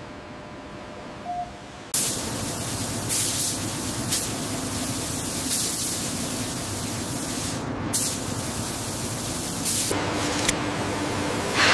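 Paint spray gun hissing steadily, starting suddenly about two seconds in, with several brief louder surges.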